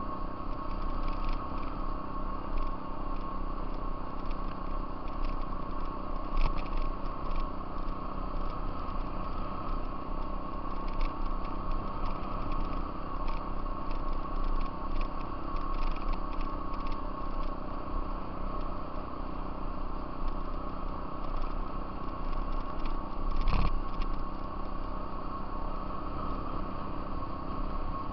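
Off-road vehicle engine running steadily on a gravel trail, with a steady whine over the rumble, scattered small clicks and two louder knocks from bumps.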